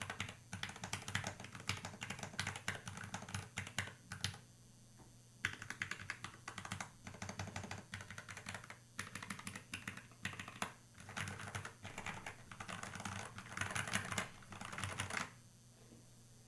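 Typing on a DIY Planck ortholinear mechanical keyboard fitted with lubed Gateron Milky Yellow linear switches: rapid runs of key clacks, with a short pause about four seconds in, stopping about a second before the end.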